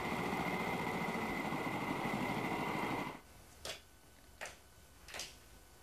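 Outboard motor of an inflatable lifeboat running steadily with a high whine, cutting off abruptly about three seconds in. Then it is nearly quiet, with three faint short taps about three quarters of a second apart.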